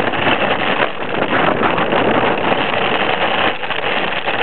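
Engineless push cart rolling fast over a paved street: a steady, dense rattling rumble from its small spoked wheels and frame, with wind buffeting the microphone.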